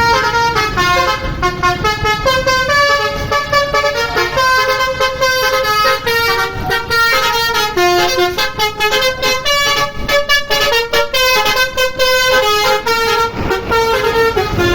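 Tour bus's Basuri telolet horn playing a tune: a loud, unbroken run of short horn notes, stepping up and down in pitch several times a second.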